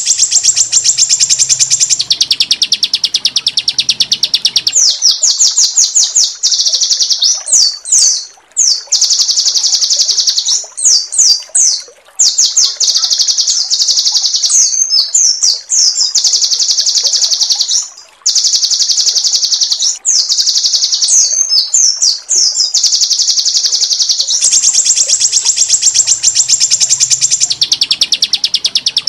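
A small songbird's song of long, very fast, high-pitched rolling trills, some stepping down in pitch, broken by clusters of quick sweeping chirps. It is a looped masteran song-tutor track of rough 'tembakan' trills, and the opening trill sequence comes round again near the end.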